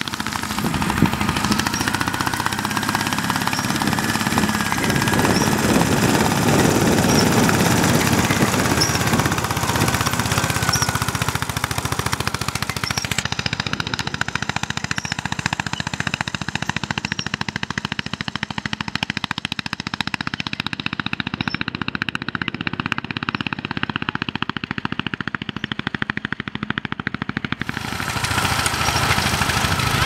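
Ransomes MG5 crawler's single-cylinder petrol engine running under load as it pulls a single-furrow plough, with a fast, sharp popping exhaust beat.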